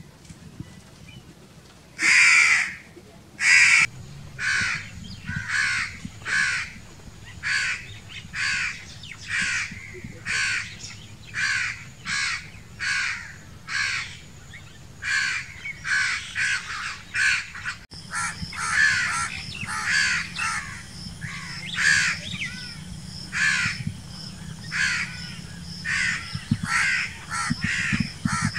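House crows cawing: harsh calls about once a second, denser and overlapping in the last third.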